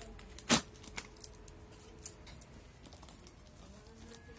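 Plastic courier mailer and paper invoice crinkling as they are handled: one loud crinkle about half a second in, then a few light clicks and soft rustles.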